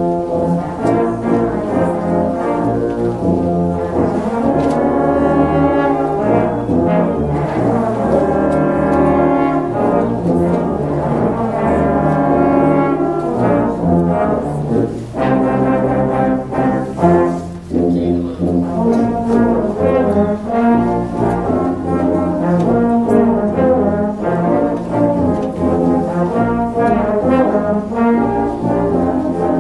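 Middle-school low brass ensemble of euphoniums, tubas and trombones playing a piece together.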